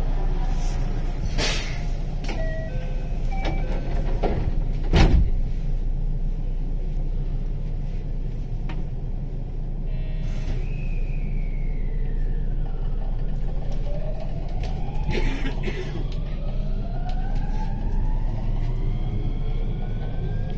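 Inside a JR West 223 series 2000 electric train car: the sliding door shuts with a thump about five seconds in, then the train pulls away, its VVVF inverter traction motors whining in several rising tones as it accelerates, over a steady low rumble.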